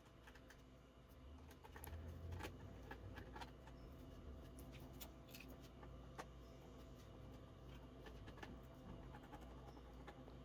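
Near silence with scattered faint clicks and scratches from hands working on the EV charger controller while removing its cord plug, most in the first half; a low hum runs underneath.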